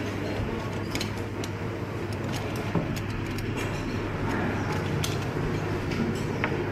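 Restaurant dining-room ambience: a steady low hum under scattered light clinks of bowls and utensils, with faint voices in the background.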